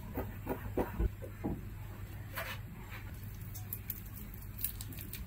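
A spoon tapping and scraping against a small glass bowl while stirring a soft white paste: a quick run of light clicks in the first second and a half, a brief scrape a little after two seconds, then a few more scattered ticks, over a steady low hum.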